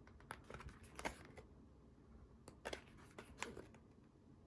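Faint paper handling as an album photobook's pages are flipped: a few soft, scattered clicks and light rustles.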